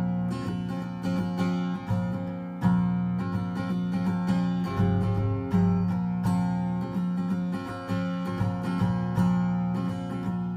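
Solo acoustic guitar strumming chords in a steady rhythm.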